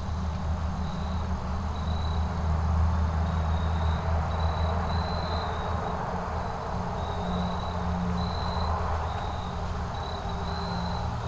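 Crickets chirping, short high notes repeating about once a second, over a steady low rumble.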